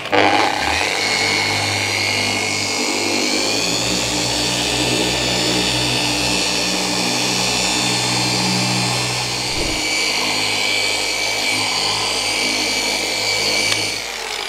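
Corded electric car polisher running steadily with a foam cutting pad and compound on a flat painted door panel, at about half speed. The motor whine climbs in pitch over the first couple of seconds as it spins up, then the machine cuts off just before the end.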